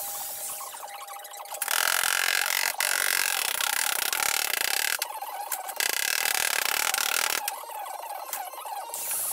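Handheld angle grinder grinding the edge of thin sheet metal in two long passes, the first about three seconds and the second about a second and a half, with a short break between.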